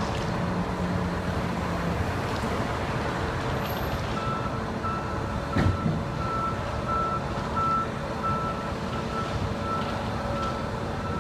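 A vehicle's reversing alarm beeping steadily about twice a second, starting about four seconds in, over a constant rumble of engine and traffic noise. A single knock comes shortly after the beeping starts.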